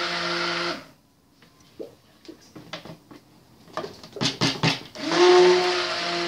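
Stick blender mixing cold-process soap batter in a plastic bucket, run in bursts to bring the oils and lye solution to trace. It runs steadily, cuts off a little under a second in, and starts again about five seconds in, winding up to speed. In the pause between, a few light knocks and clicks.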